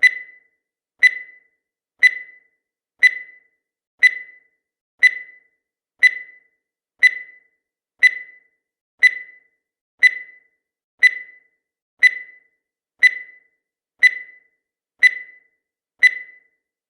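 Countdown timer sound effect: a short, sharp high tick once a second, each fading quickly, seventeen in all.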